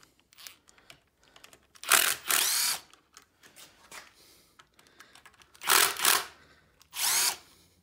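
Bosch cordless driver spinning out the 8 mm bolts that hold the oil pump to the snowmobile engine's recoil housing: a motor whine at about two seconds in and twice more near the end, with light clicks of the socket and bolts between runs.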